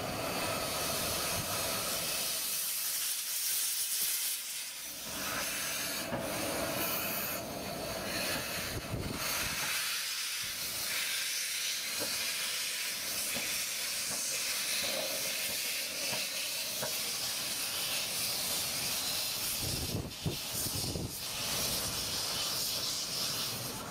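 15-inch-gauge miniature steam locomotive hissing steadily as steam blows out low around its cylinders.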